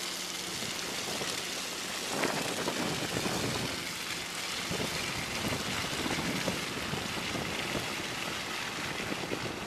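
Wind buffeting the microphone during a snowstorm: a steady rushing noise with irregular low rumbling gusts.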